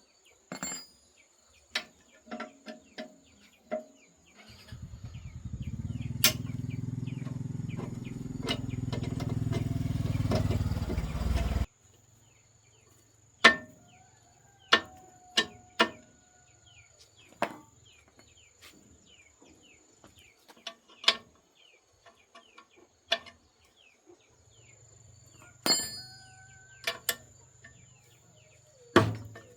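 Scattered sharp knocks and clinks, like tools on metal during repair work. A loud low mechanical drone, like a motor, runs for about seven seconds in the first half, grows louder, then cuts off suddenly.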